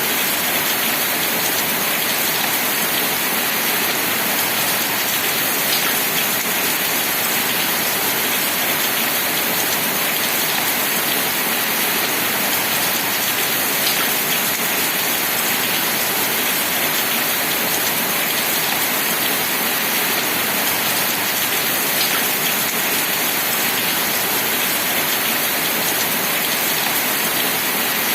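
Steady rain falling on a surface, an even hiss with the odd louder drop tick.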